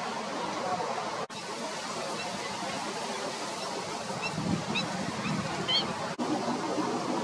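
Steady outdoor background noise with a few short, high bird chirps between about four and six seconds in. The sound cuts out briefly twice.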